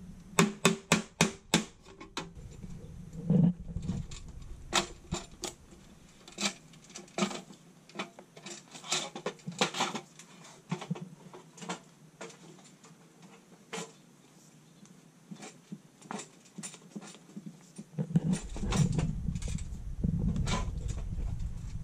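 A hammer tapping a tool against the steel sub-panel enclosure, about seven quick strikes in the first two seconds, punching out a knockout. Scattered metallic clicks and knocks follow as the sheet-metal box is handled, with a low rumble of handling near the end.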